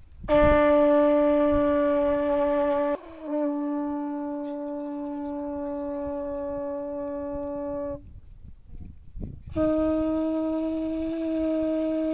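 A horn trumpet blown in long, steady single-note blasts: one of nearly three seconds, a second of nearly five seconds after a brief break, then a pause of over a second before a third blast starts near the end.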